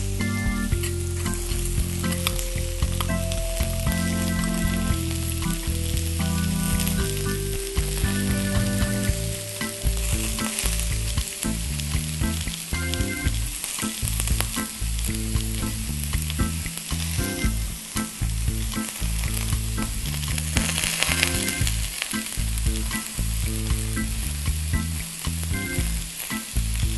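Raw chicken breasts frying on an electric griddle with a cast iron grilling grate: a steady sizzle that swells briefly about two thirds of the way through.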